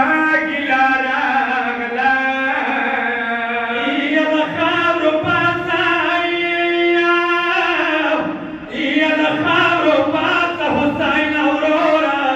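Unaccompanied male voice chanting a melodic Shia lament (noha), with long drawn-out notes and a brief breath pause about eight seconds in.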